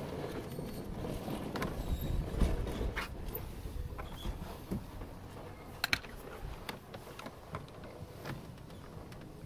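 Hand work at a car's steering column: scattered small clicks and knocks of parts being handled, over low rumbling handling noise, with a close double click about six seconds in.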